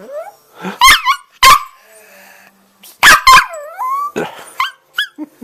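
Dog barking in loud, sharp barks, about four of them, with whining yelps sliding up and down in pitch between them: an agitated reaction to a person making a buzzing noise.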